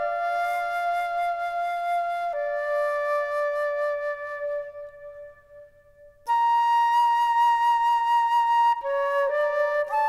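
Slow solo flute music of long held notes, each changing pitch every couple of seconds. It fades almost away about five seconds in, then a new note starts a second later.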